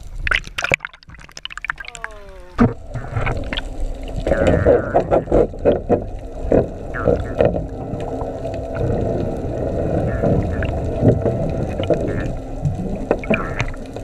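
Muffled underwater sound picked up by a submerged camera beside a boat: knocks and clicks, then a steady hum with clattering that sets in about four seconds in.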